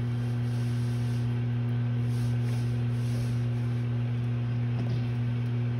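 Microwave oven running with a steady low hum.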